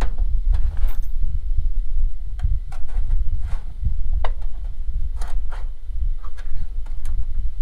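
Wind buffeting the microphone as an uneven low rumble, with scattered small clicks and taps of things being handled.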